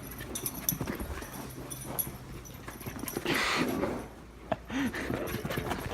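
A dog's small vocal sounds, with a few knocks and a short rustle about halfway through.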